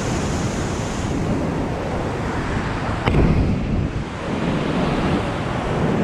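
Rough surf breaking and washing over a rocky reef, with wind buffeting the microphone. About three seconds in there is a sharp click, then a louder surge.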